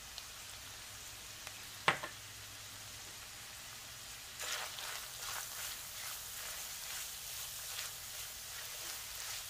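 Ground beef and onions sizzling steadily in a frying pan, with one sharp tap about two seconds in. From about halfway, a spatula stirs and scrapes through the meat in irregular strokes.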